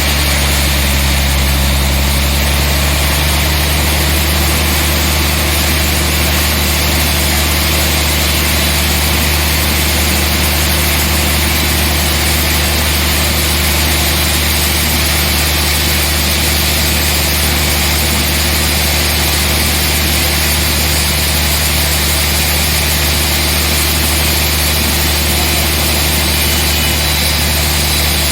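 Sawmill machinery running steadily: a low engine-like hum under a constant hiss, unchanging throughout.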